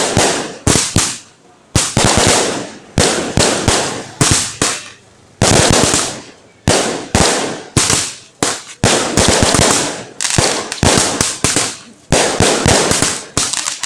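Fireworks going off in a continuous series of sharp bangs, often several a second and sometimes in quick clusters, each dying away briefly before the next.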